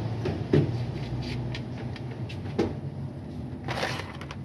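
Scattered knocks and clatter of tools and parts being handled over a steady low hum, with a short hissing rush near the end.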